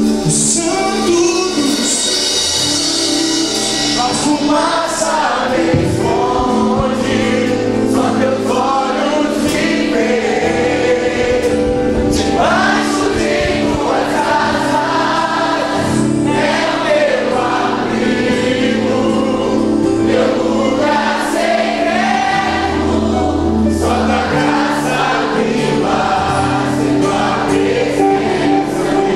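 Live Christian worship song: a man sings lead over acoustic guitar and a band, with many voices singing along.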